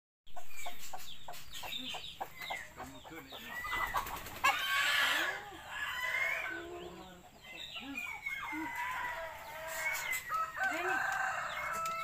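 Farmyard birds calling: hen-like clucks and a crowing call mixed with quick chirps and whistled, rising-and-falling calls of smaller birds.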